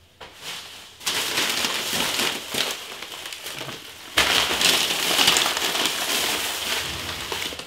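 Thin plastic grocery bag rustling and crinkling as it is lifted and rummaged through. The rustling starts about a second in and grows louder about four seconds in.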